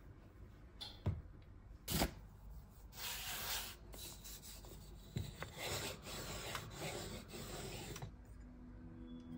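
Wooden rolling pin rolling cookie dough out on a plastic board, a rubbing sound in several back-and-forth strokes. Two knocks come about a second and two seconds in, before the rolling starts.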